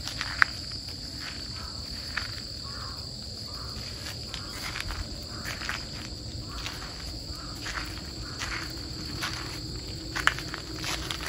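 Footsteps crunching on a gravel path, irregular steps about once a second, over a steady high-pitched chorus of insects.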